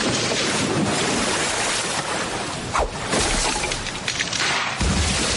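Anime sound-effect ambience: a steady rushing noise of water, with a low thump near the end.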